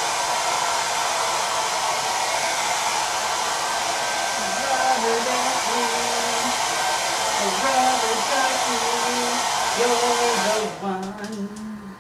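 Hand-held hair dryer blowing steadily, drying freshly painted acrylic on a canvas, then switched off shortly before the end. From about halfway a voice hums a tune over the blowing.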